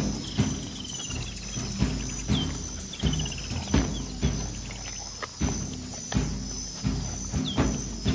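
African wild dogs feeding at a kill: irregular sharp snapping, tearing and crunching sounds. Under them runs a steady high insect chirr, broken by a few short runs of quick falling chirps.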